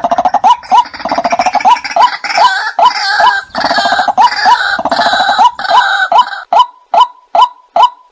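White-breasted waterhens calling, a lure recording for drawing the birds in. A short 'kwak' note repeats a little over twice a second. Over it, a harsh chorus of overlapping croaking and chattering calls runs until about six and a half seconds in, after which only the repeated single notes are left.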